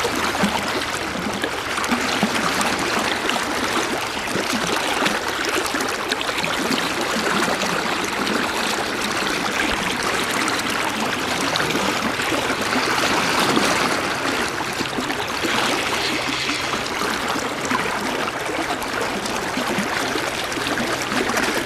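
River in high water rushing past: a steady, unbroken rush of fast current.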